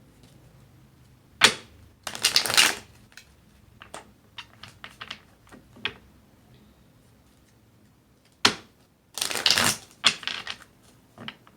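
Tarot deck being shuffled by hand: two bursts of cards clattering together, each opened by a sharp tap, with lighter card ticks between them.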